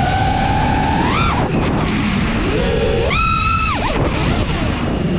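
FPV racing quadcopter's brushless motors and propellers whining. The pitch climbs about a second in, then jumps higher and holds for under a second around the three-second mark before dropping, as the throttle is punched and eased. Heavy wind and prop-wash rumble runs underneath.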